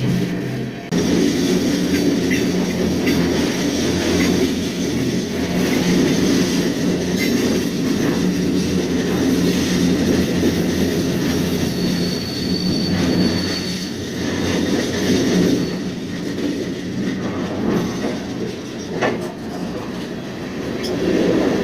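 Freight train rolling along, heard from on board: a steady, loud rumble of wheels and steel that gets louder about a second in, with a brief high wheel squeal about twelve seconds in.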